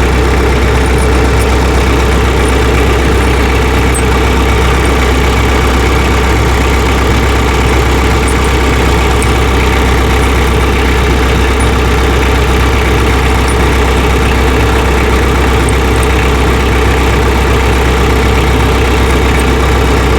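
Tractor engine idling steadily, with faint light clicks now and then.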